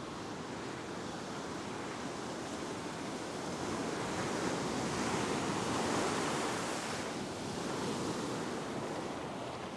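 Ocean surf breaking and washing up a sandy beach, swelling to its loudest about six seconds in and then easing.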